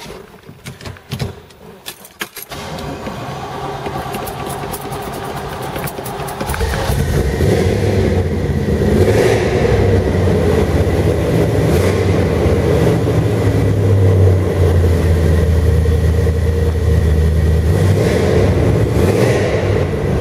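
A 1968 Chevrolet Corvette's V8 being started: a few clicks, then several seconds of cranking before the engine catches about six seconds in. It then runs loudly and steadily.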